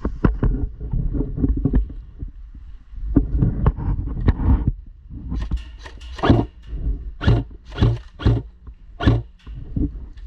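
Footsteps at a walking pace, sharp crunching steps about every half-second to one second in the second half, over a steady low rumble of wind and handling on the microphone.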